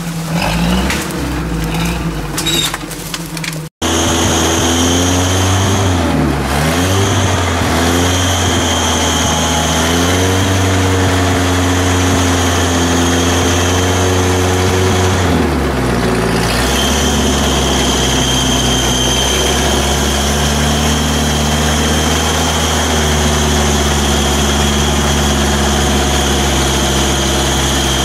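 Off-road 4x4's engine running at low revs, its pitch dipping and rising a few times, then holding steady for the second half.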